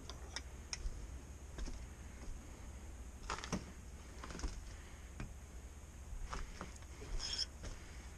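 Scattered light clicks and clinks of metal hand tools being handled and sorted, with a small cluster of knocks about three and a half seconds in and again near the end.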